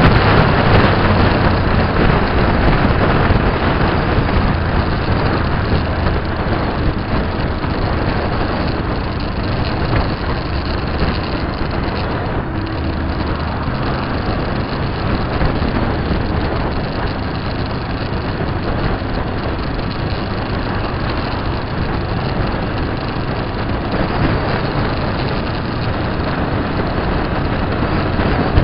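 Steady engine and road noise of a moving vehicle at cruising speed, a continuous dense rush with a low hum underneath.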